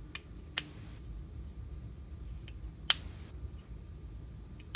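Handling noise from 3D-printed plastic printer-carriage parts being worked together by hand: four small sharp clicks against a faint steady background, the loudest about three seconds in.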